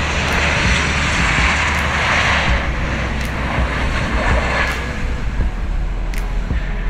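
Embraer ERJ-190 airliner's GE CF34 turbofan engines passing close on the landing approach to touchdown: a loud jet roar that swells twice and eases off near the end, over a steady low rumble.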